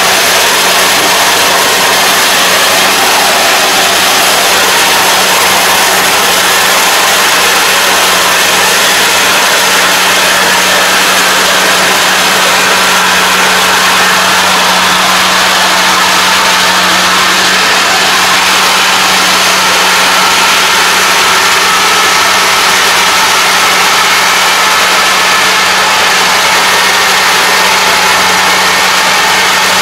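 Kubota ARN460 combine harvester's diesel engine and threshing machinery running steadily under load as it cuts rice, with a steady low hum.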